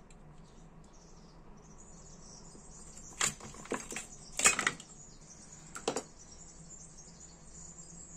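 Tiny metal lighter parts clicking and rattling in a clear plastic compartment box as they are picked through with tweezers: a few sharp clicks between about three and six seconds in, the loudest near the middle.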